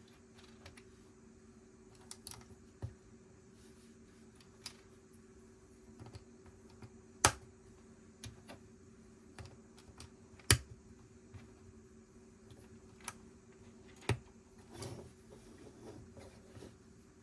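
Lego bricks being handled and pressed together: scattered small plastic clicks and taps, with three sharp snaps standing out in the middle and later part, and a brief rustle of loose pieces near the end.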